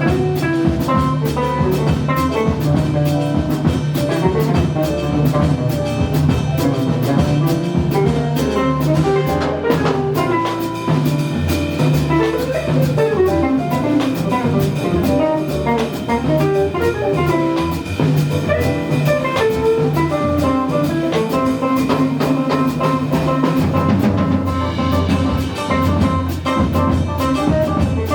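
Small jazz band playing: melodic lines over a bass line, with drum kit cymbals keeping time throughout.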